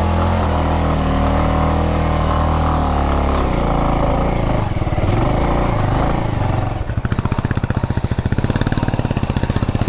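Motorcycle engine running steadily under throttle, revving up and down a few times, then settling to a pulsing idle about seven seconds in.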